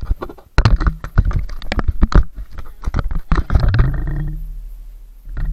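Close knocks and scrapes of an action camera being handled and set down on a concrete path, right on the microphone. After them a low ringing tone fades away over about two seconds.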